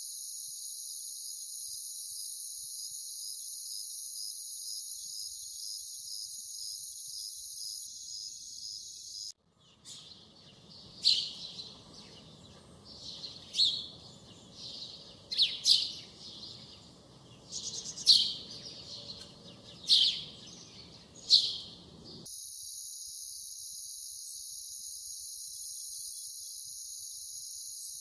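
Insects chirring in a steady high buzz with a quick pulse. About nine seconds in it cuts to a bird giving sharp, repeated calls, roughly one every one to two seconds for about twelve seconds, then the insect chirring returns.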